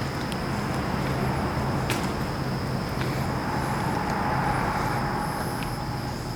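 A vehicle passing on a road outside, its road noise swelling to a peak around the middle and then easing off. A steady high whine and a few light clicks run underneath.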